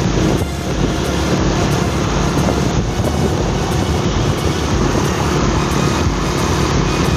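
Motorcycle riding along a road at a steady cruising speed: engine running under a constant rush of wind and road noise.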